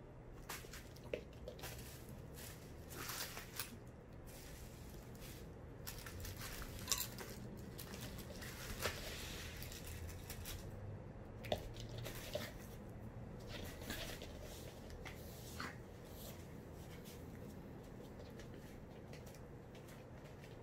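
Quiet, irregular light clicks, taps and rustling: a Maltese dog's paws scampering about and bubble wrap rustling. The taps are busiest in the first two-thirds and thin out near the end.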